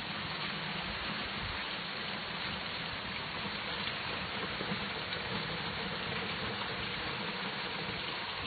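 Steady rain falling, an even hiss with an uneven low rumble underneath.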